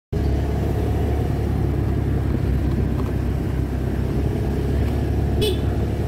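Motor vehicle engine running steadily with road rumble while moving, and one short horn beep near the end.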